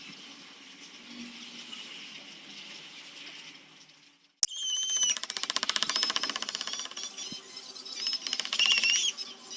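A soft steady hiss, then about four seconds in a small power tool starts abruptly, chattering in a fast even rattle against wood with short high squeals.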